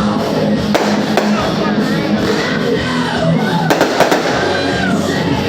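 Fireworks going off in sharp bangs, a few early on and a quick cluster about four seconds in, over loud music with voices.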